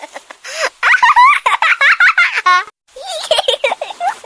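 A baby laughing: short bursts of high-pitched giggles and squeals with a breathy gasp between them. The sound cuts to silence for a moment near the middle, then the laughter goes on.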